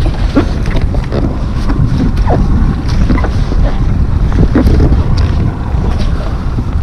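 Wind buffeting the microphone over water lapping against an inflatable boat's side, with scattered short sharp sounds throughout.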